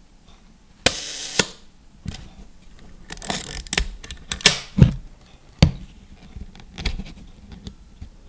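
Rollei 35 S leaf shutter fired at half a second: a click as it opens, a steady whirr of its timing gears for about half a second, and a click as it closes. After that come a run of small mechanical clicks and scrapes as the camera is handled and its shutter-speed dial is turned.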